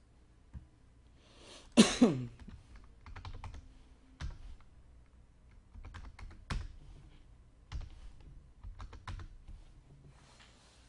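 Scattered keystrokes on a computer keyboard, a few clicks at a time in short clusters. About two seconds in comes the loudest sound, a brief falling-pitched sound.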